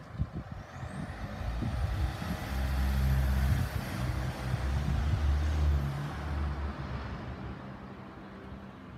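A motor vehicle driving past in the street, its engine rumble and tyre noise swelling to a peak about three seconds in and fading away over the next few seconds.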